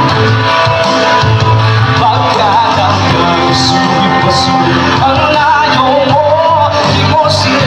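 A song playing loud, with a singer holding long notes with vibrato over the backing music.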